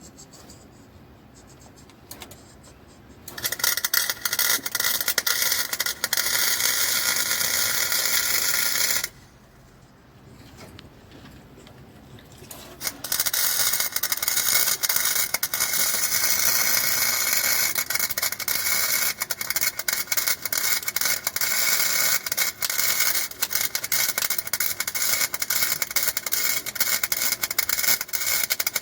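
Welding arc on the Hasport engine mounts, crackling and sizzling in two long runs: one starting about three seconds in and stopping around nine seconds, and a second starting around thirteen seconds and still going at the end.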